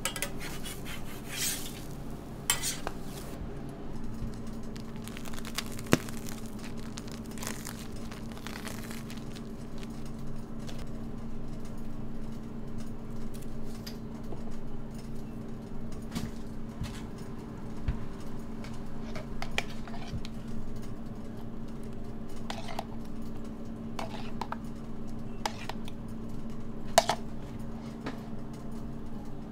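Crepe-making utensils working at a round crepe griddle: scattered scrapes, taps and clinks of metal tools. Under them runs a steady low hum that grows stronger about four seconds in.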